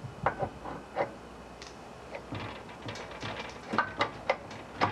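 Irregular clicks and scrapes of a metal coupler shaft being slid onto and lined up with the keyed PTO shaft of a Predator 212cc engine, with a few sharper knocks near the start and about four seconds in.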